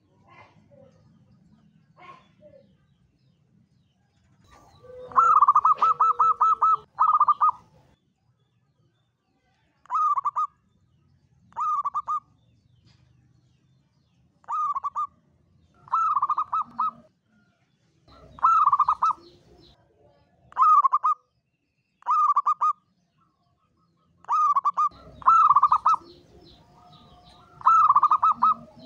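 Zebra dove (perkutut) cooing: about a dozen rolling, rapidly pulsed coos at much the same pitch, repeated every one to three seconds, some short and some drawn out into long phrases of several quick notes.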